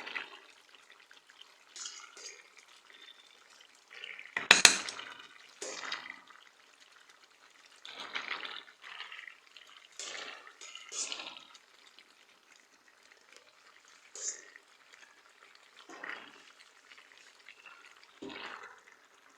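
Wet sloshing and scraping of cooked pasta being tipped into a creamy tomato sauce in a pot and mixed, in short bursts every second or two. There is one loud clank of a utensil against the pot about four and a half seconds in.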